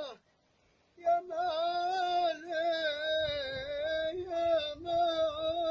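A solo voice singing long, wavering, ornamented notes without accompaniment. It breaks off briefly near the start, then resumes.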